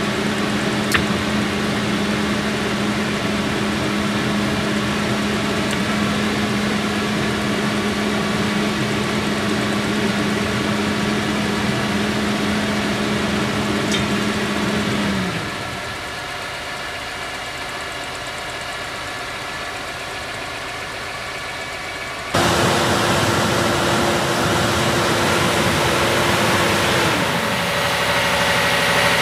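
Parked diesel road train with refrigerated trailers idling: a steady engine drone with a constant hum that drops in pitch and level about halfway through. About 22 seconds in it turns suddenly louder, and a second steady hum falls away near the end.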